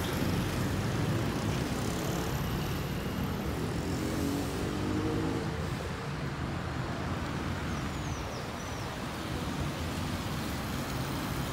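Road traffic on a city avenue: a steady rumble of passing cars, with one engine's note standing out for a few seconds near the middle.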